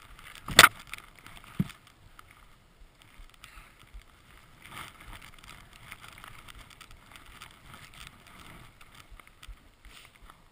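Skis running through deep powder snow, a soft hiss that swells with each turn. A loud knock comes about half a second in, and a smaller click a second later.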